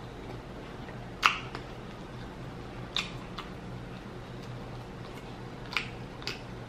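Close-miked mukbang chewing: a handful of short, sharp wet mouth smacks and clicks spaced a second or more apart, over a faint steady hum.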